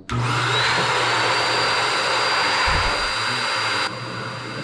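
A small electric motor appliance runs with a steady rush of air. It starts abruptly, its high whine rising briefly as it spins up and then holding steady, and it drops to a lower level near the end.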